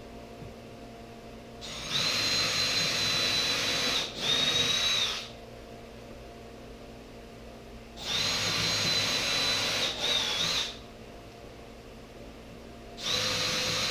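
Power drill driving construction screws into the wood frame: three runs of a steady motor whine, each about three seconds long, with a short slowdown near the end of each as the screw pulls in and seats.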